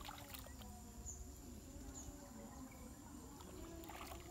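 Faint outdoor ambience: a few short bird chirps over insect noise, with a couple of soft clicks near the start and again about four seconds in.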